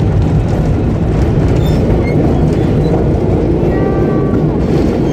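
Vintage R1-9 subway car running through a tunnel: a steady, loud rumble of wheels on rail. A brief squeal of several high tones comes about four seconds in.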